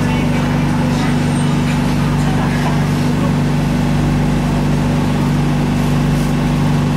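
Steady low hum of a BTS Skytrain train standing at a station platform, its motors and equipment running without change in pitch.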